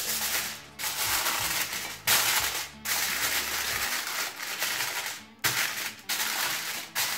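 Aluminium foil crinkling and rustling in several long bursts, with short pauses between them, as it is spread over a glass baking dish and pressed around its edges.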